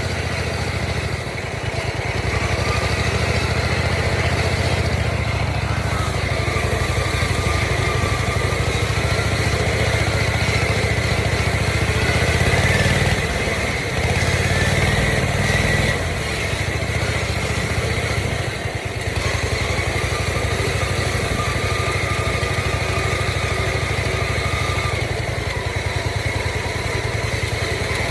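Modified riding lawn mower engine, cammed up with altered rocker ratios, running under way. Its revs dip and pick back up a few times.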